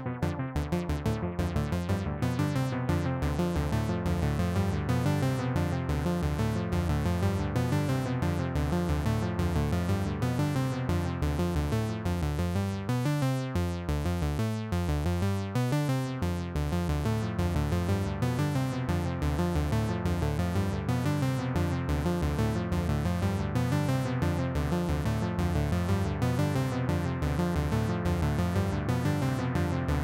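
KORG Monologue analog monophonic synthesizer playing a fast repeating sequenced pattern of low notes through a Donner Yellow Fall delay pedal. About halfway through, the sound turns darker and thinner for a few seconds, then fills out again.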